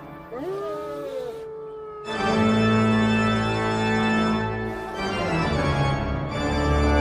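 Sustained organ chords, with wolves howling over the first two seconds: several overlapping calls that rise and then hold. The organ swells louder about two seconds in.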